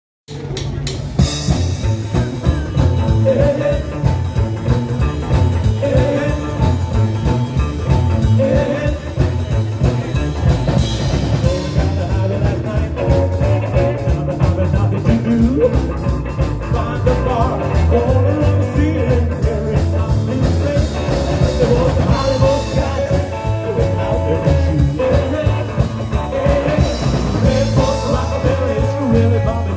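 Live rockabilly band playing a song on upright double bass, drum kit and electric guitar, amplified through PA speakers, with a steady driving beat.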